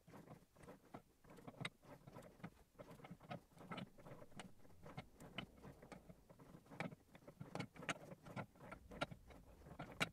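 Four-jaw lathe chuck being adjusted with a chuck key: faint, irregular clicks and knocks, several a second, as the jaw screws are turned to centre the workpiece and take out its runout.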